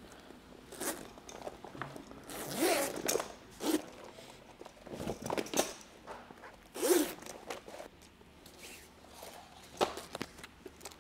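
Zipper on a rooftop tent's fabric cover being pulled open in a series of short rasps, separating the cover's top portion from its zipper strip.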